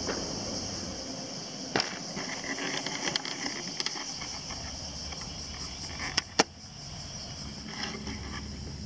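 Steady high-pitched insect chorus, with a few sharp clicks scattered through it, the loudest pair about six seconds in.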